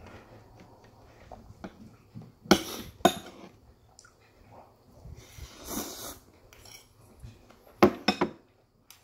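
Spoon knocking and clinking against a bowl and a plastic food container while eating, a couple of sharp clacks early on and the loudest two or three in quick succession near the end, with a longer hissy stretch of slurping in between.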